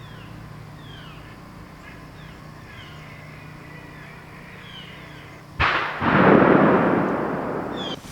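Faint high chirps, then about two-thirds in a sudden shotgun blast whose long rolling report dies away over about two seconds, the sound of duck hunters shooting across the lake.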